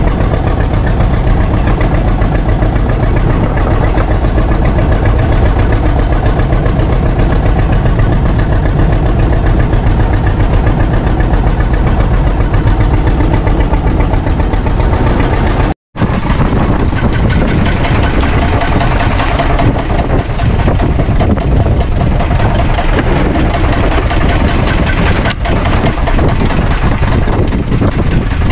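A fishing boat's engine running steadily and loud close by. The sound drops out for an instant about sixteen seconds in, then the engine carries on.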